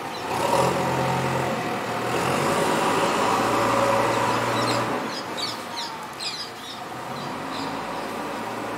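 A motor vehicle's engine hum swells and then fades as it passes, with birds chirping briefly about halfway through.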